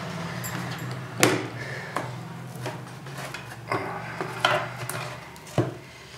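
Wooden back panel of an old home theatre speaker cabinet being worked loose and lifted off by hand: several sharp knocks and scrapes of wood, the loudest about a second in.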